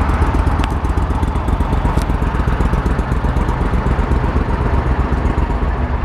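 The engine of a 2016 Argo 6WD Frontier EFI amphibious all-terrain vehicle idling steadily, a fast even pulsing.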